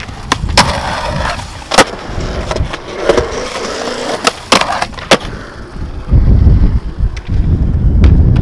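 Skateboards on concrete: a few sharp clacks of the board and a gritty scraping over the first five seconds, then the heavy low rumble of urethane wheels rolling on the concrete near the end.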